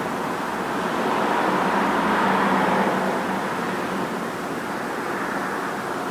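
Rushing noise of road traffic going by, swelling about two seconds in and slowly fading.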